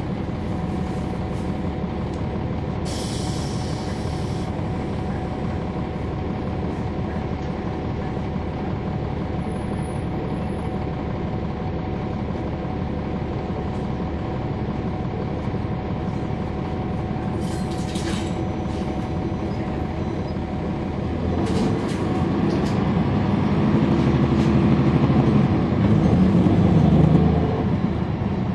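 Cummins ISL9 diesel engine of a 2011 NABI 40-SFW transit bus with a ZF Ecolife automatic, heard from on board, running steadily with a brief hiss about three seconds in. About two-thirds of the way through, the engine works harder and grows louder for several seconds, then eases off near the end.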